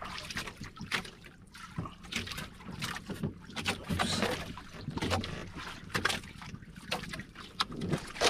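Small waves slapping and splashing against the hull and outriggers of a small outrigger boat, in irregular sharp splashes and knocks over a steady wash of water.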